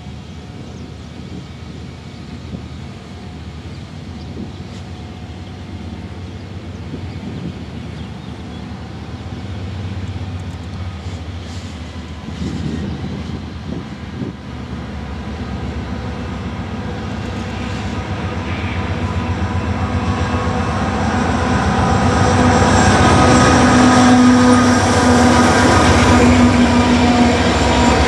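Union Pacific diesel-electric freight locomotives approaching under power, their engines growing steadily louder and passing close by near the end.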